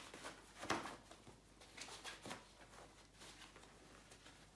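Soft rustling of a black cloth drawing bag being turned inside out and handled, in a few brief rustles, the loudest about two-thirds of a second in.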